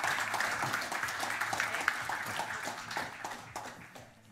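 Audience applause: many hands clapping in a dense patter that thins out and fades away near the end.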